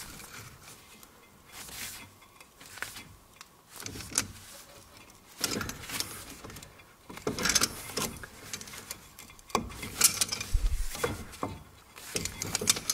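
Metal clicks, clinks and short scrapes in irregular bursts as pliers grip a brake caliper and try to press its piston back in; the piston is a little stuck and barely moves.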